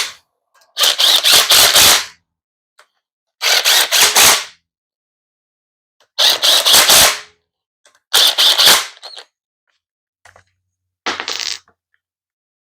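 Power impact wrench hammering in five short bursts of about a second each, the last one shorter.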